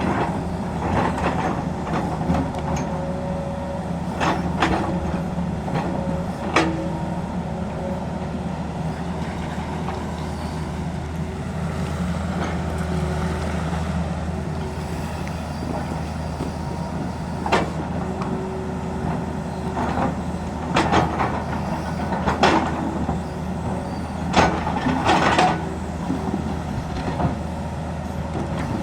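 Tata Hitachi excavator's diesel engine running steadily under work, with several short knocks and clanks at irregular moments.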